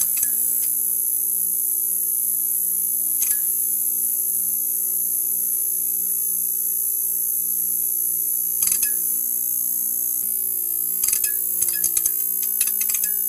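Neon sign buzzing: a steady electrical hum with a high hiss over it, broken by a sharp click about three seconds in, another a little past halfway, and a quick run of crackling clicks near the end.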